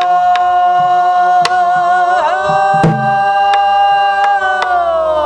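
Several voices sing pansori together, holding one long drawn-out note on the word "tteo" (float up) that dips briefly partway through and slides down near the end. Buk barrel drums are struck under it, one sharp stroke every second or so.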